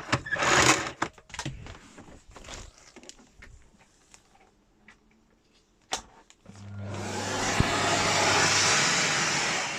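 Handling clicks and knocks from the plug and cord, then a sharp switch click about six seconds in. After it the Miele Compact C2 Powerline cylinder vacuum cleaner's motor starts and runs up to a loud, steady rush of air with a low hum, easing off slightly near the end.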